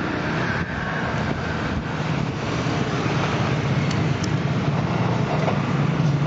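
JR 205 series electric commuter train running along the track as it pulls away: a steady rumble of wheels on rails, with a few faint clicks in the first two seconds.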